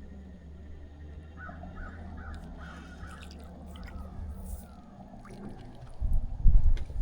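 A crow cawing in a quick series of harsh calls starting about a second and a half in, over a steady low hum that fades out about halfway. Loud low thumps near the end.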